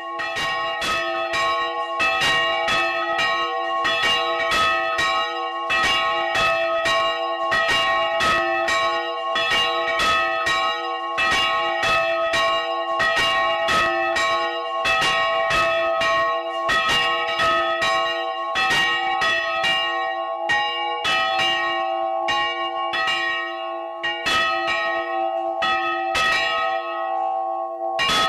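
Several monastery church bells of different pitches, rung by hand with ropes. Quick repeated strokes come a few times a second over the bells' steady ring.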